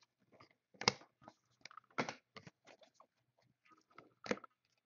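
A foil trading-card pack crinkling as it is opened and the cards are handled: scattered short crackles, the loudest about a second in, two seconds in and near the end.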